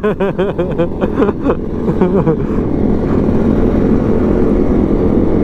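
Honda CRF250 Rally motorcycle's single-cylinder engine running steadily at a cruising speed of about 50 km/h, under a steady rush of riding noise. A voice calls out during the first two seconds.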